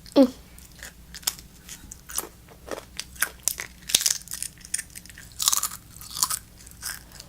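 Doritos tortilla chips crunched and chewed close to the microphone, a string of sharp crunches every half second or so. A short falling vocal sound comes right at the start.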